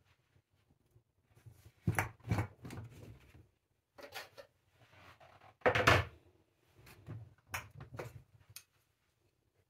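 A fabric shopping bag being set down on a kitchen worktop and handled: a string of knocks and thuds with rustling, the loudest about six seconds in.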